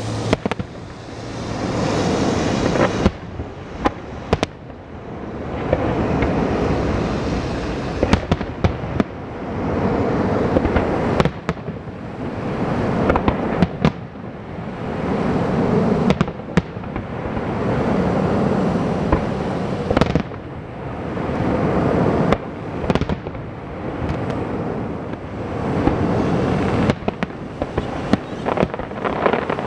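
Fireworks display: aerial shells bursting in a steady run of sharp bangs, over a dense rumbling noise that swells and fades every few seconds.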